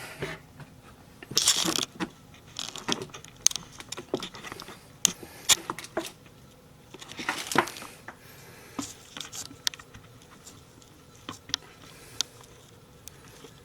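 Handling noise: scattered clicks and light knocks, with two short crinkling, rustling bursts, one about a second and a half in and one around seven seconds in.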